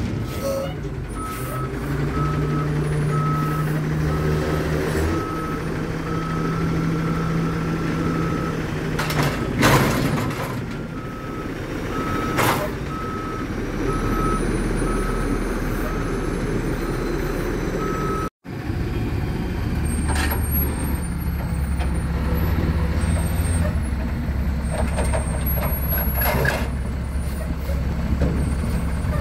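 Autocar WXLL front-loader garbage truck's diesel engine running while its backup alarm beeps over and over for the first two-thirds. After a break the engine keeps running, with a few sharp knocks.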